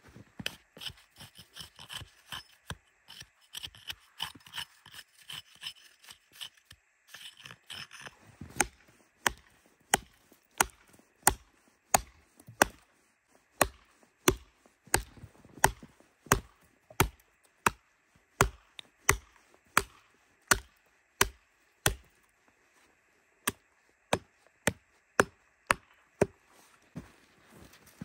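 A hatchet chopping into a log, with steady, evenly spaced strikes about every 0.7 seconds, a short pause, then a few more blows. Lighter, irregular knocks and rustling come before the steady chopping begins.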